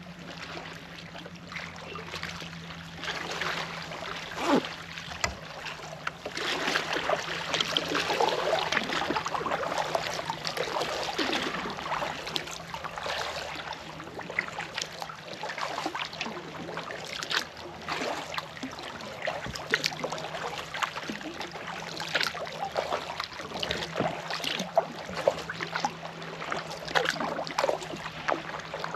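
Sea kayak paddle strokes: blades dipping and pulling through the water with splashing, and water dripping and trickling off the paddle between strokes. The splashing grows louder about six seconds in.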